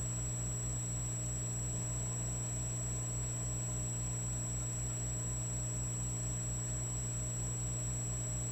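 Electric fireplace log set running with a steady electrical hum and a fast low throb, about five or six pulses a second, under a thin steady high whine.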